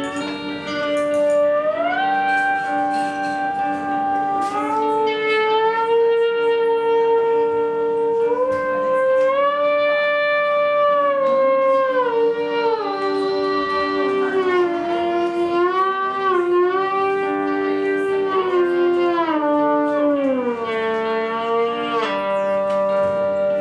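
Lap steel guitar played with a slide: long sustained notes glide up and down between pitches over a steady lower note that holds underneath.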